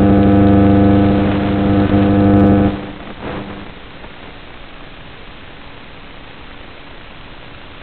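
Model plane's electric motor running with a steady buzzing hum that cuts off abruptly about three seconds in, leaving a steady hiss.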